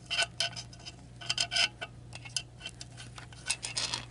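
Light metallic clicks and taps in irregular clusters as a telescoping magnet pickup is worked down among the valve springs inside a Kohler K301 engine block, over a faint steady low hum.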